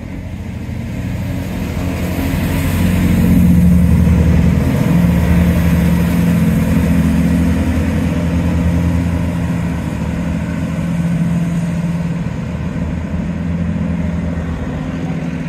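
A vehicle's engine running steadily at low revs. It grows louder to a peak about four seconds in, then slowly eases off.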